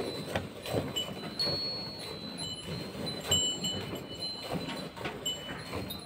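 Cow being milked by hand: jets of milk squirting in a steady rhythm of about two to three a second into a steel bucket of frothy milk. Short high ringing notes sound now and then over it.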